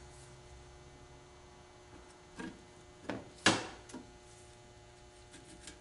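Small metal parts of an automatic transmission valve body being handled and set down on its aluminium plates: a few sharp clicks and taps about two and a half to four seconds in, the loudest a single knock about three and a half seconds in, over a low steady hum.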